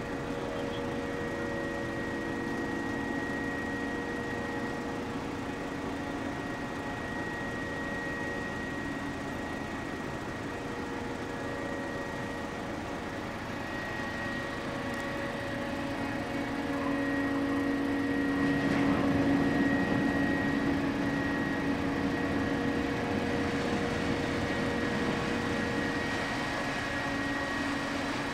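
The ferry Suzuran's machinery running as she berths: a steady hum with several steady tones, growing louder about two-thirds of the way through.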